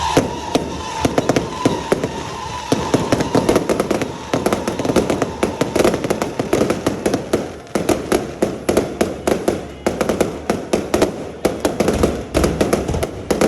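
Fireworks going off in a dense, rapid crackling barrage, many sharp pops a second with louder bangs among them.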